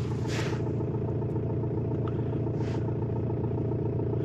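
Car's diesel engine idling steadily, heard from inside the cabin, with two brief soft rustles.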